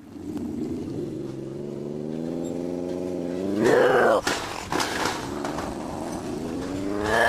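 An animal's long, drawn-out moaning calls: a first held call that climbs in pitch about three and a half seconds in, then a second that rises again near the end.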